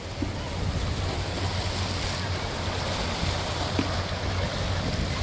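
Sea waves washing in over a rocky shore, a steady rush with wind rumbling on the microphone.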